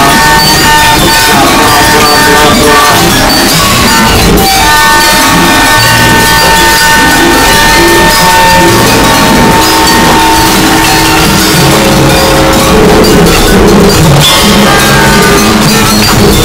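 Harsh noise music: a dense, loud wall of noise at constant level. A few steady high tones are held through the first ten seconds, breaking off briefly about four seconds in, and a lower tone comes in after about twelve seconds.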